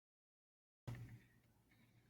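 Near silence: dead digital silence, then faint room tone from about a second in, with a brief faint blip as it begins.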